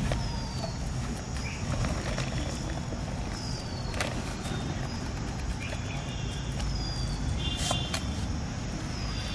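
Outdoor background of a steady low rumble. A short falling call, bird-like, repeats about every three seconds, with a few light clicks and a brief buzzy call near the end.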